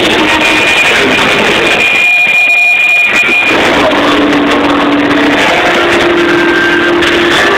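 Metal band playing live, recorded overloaded and distorted: heavy guitars, bass and drums. About two seconds in the low end drops out for a moment, leaving a high held whine, then the band comes back in with long held low notes.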